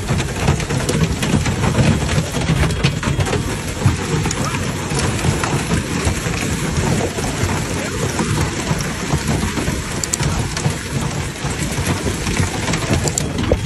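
Severe hailstorm: hailstones and heavy rain pelting down in a dense, steady clatter of countless small impacts, with a deep rumble underneath.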